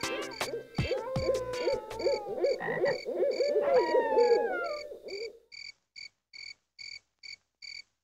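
A frog calling in a quick run of repeated notes that stops about five and a half seconds in, over crickets chirping steadily about twice a second.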